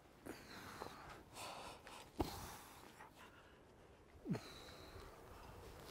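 A climber breathing hard with effort on a hard lead, with short, sharp exhalations about two seconds in and again after four seconds.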